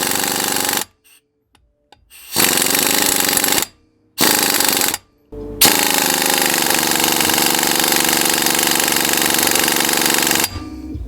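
Old 3/8-inch Campbell Hausfeld air impact wrench hammering on a bolt in four bursts, the last about five seconds long, with short silent pauses between them. The bolt does not come loose, so the small impact is struggling to break it free.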